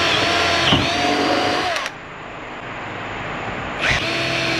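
An electric power tool's motor running at speed, dipping briefly in pitch as it takes load about a second in, then winding down to a stop just before the two-second mark. It starts up again near the end.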